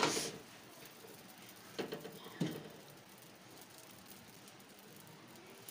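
A few light knocks and clicks from a flat tawa griddle being handled on a stove: one sharp knock at the start, then two shorter clicks about two seconds in, over a faint hiss.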